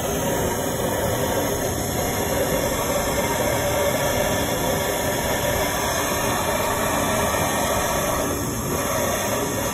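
Handheld gas torch burning with a loud, steady rush of flame noise as it is held against split firewood to light it.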